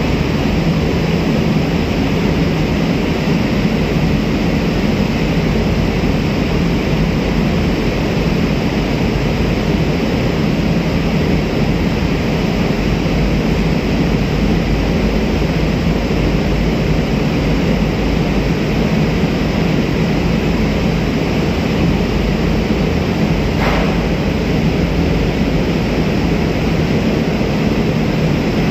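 Steady, loud engine drone mixed with rushing water, heard from a boat running close beside a moving container ship's hull.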